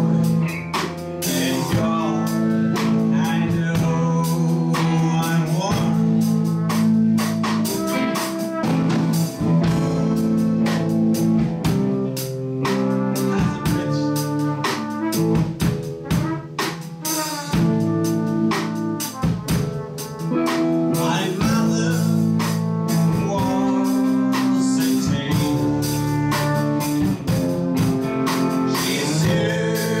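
Band music with drum kit, guitar and held keyboard chords, and a singing voice.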